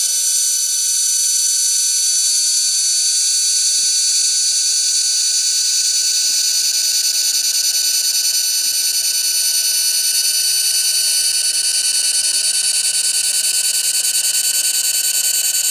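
xTool MetalFab handheld laser welder running a weld on stainless exhaust tubing: a steady high-pitched whine with a hiss.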